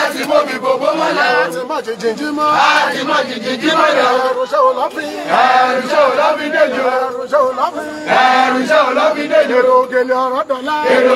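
A crowd of men's voices chanting and singing together in repeated phrases, loud and continuous.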